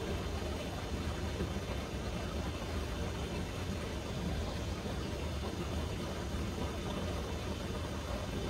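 Steady cockpit background noise of a Boeing 737 on the ground: a low hum under an even airy rush, with no changes.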